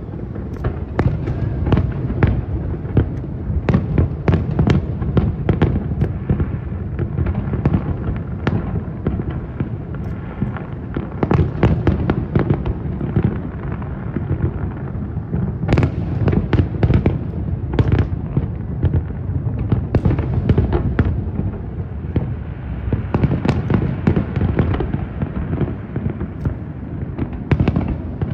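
Aerial fireworks display: a continuous barrage of overlapping shell bursts and crackling reports, with a constant low rumble of booms and sharper cracks standing out every fraction of a second.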